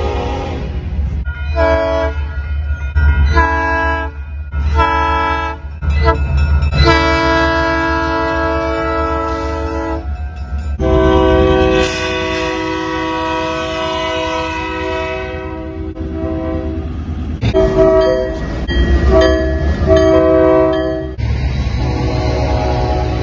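Locomotive horn sounding a chord in a string of blasts: three short ones, two long held ones, then more short ones near the end, over the steady low rumble of the train.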